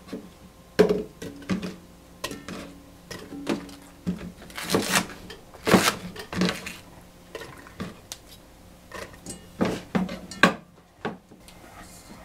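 Kitchen knife chopping green onion stalks on a bamboo cutting board: irregular knocks of the blade against the board, with a few louder, longer strokes about five seconds in.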